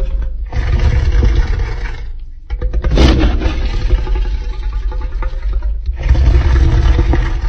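Made-up Giganotosaurus roar sound effect: a deep, rumbling, growling roar in three long bursts, the middle one opening with a sharp crack about three seconds in.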